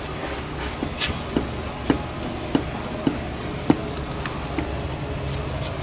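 A series of short, light knocks or clicks, roughly two a second and unevenly spaced, over a steady low hum.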